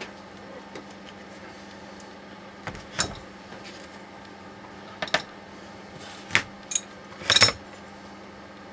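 Metal steering-rack parts and tools clinking and clanking in a few short, separate knocks, with the loudest little cluster near the end.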